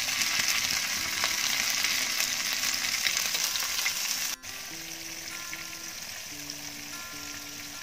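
Flour-and-cornstarch-coated chicken pieces deep-frying in hot oil, a dense crackling sizzle. A little past halfway it cuts suddenly to a quieter sizzle with soft background music.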